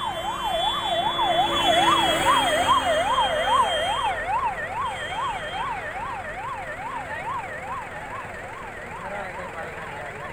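Emergency vehicle siren wailing in a fast up-and-down sweep, about two and a half sweeps a second. It is loudest a few seconds in, then slowly fades.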